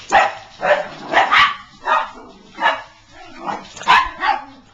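Small dogs barking, short sharp barks at about two a second, as they are brought in for their breakfast.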